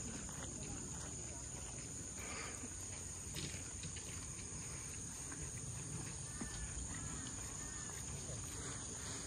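Insects buzzing in a steady, high-pitched drone over a low outdoor murmur.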